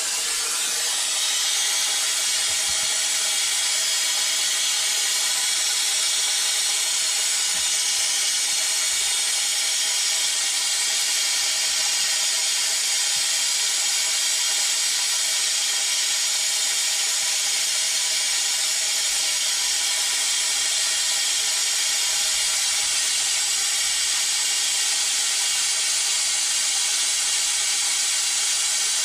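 Compressed air hissing steadily through a venturi vacuum coolant-fill tool as it pulls a vacuum on the truck's cooling system before refilling with coolant. The hiss firms up about a second in, then holds even.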